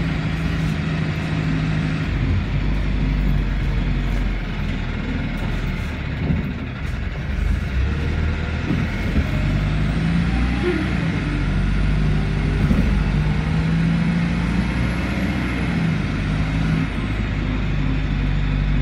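A vehicle's engine running, a steady low hum over a constant rushing noise.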